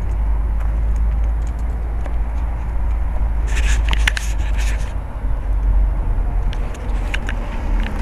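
Low rumbling handling and wind noise on the camera microphone, with a cluster of clicks and rustles about halfway through and a few more near the end.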